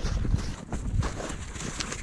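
Wind buffeting the microphone as a gusty, uneven rumble, with irregular crackles over it.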